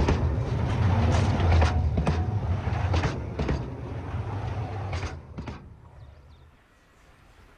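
Narrow-gauge iron ore wagons rolling directly overhead: a steady low rumble of steel wheels on the rails, broken by many sharp clicks. The sound fades away from about five seconds in.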